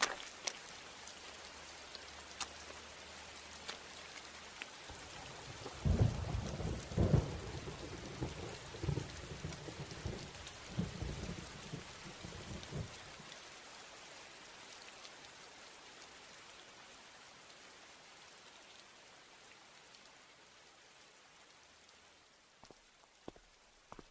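Rain-and-thunder sound effect: steady rain hiss with scattered drop ticks, and a heavy roll of thunder about a quarter of the way in that rumbles on for several seconds. The rain then slowly fades out.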